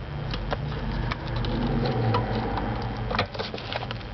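Power seat motor running, a steady low hum with light clicks and rattles, that stops about three seconds in as the seat reaches its travel.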